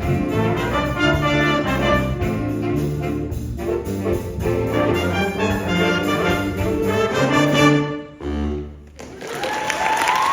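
High school jazz ensemble with a brass-heavy sound playing the closing bars of a big-band chart, ending on a loud final chord just before eight seconds in. About a second later the audience breaks into applause, with a whistle rising over it.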